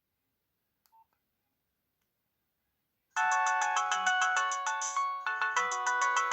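Near silence with one faint short beep about a second in, then about three seconds in a Nokia 6030 mobile phone starts playing a polyphonic ringtone through its speaker: a fast run of repeated high notes over a lower melody.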